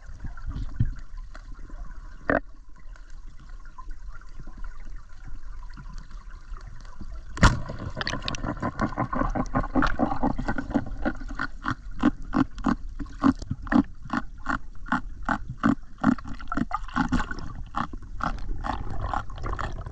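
Underwater sound through a camera's waterproof housing: a low wash of water, a lone click, then a sharp knock about seven and a half seconds in, followed by a run of quick clicks and knocks, about two a second.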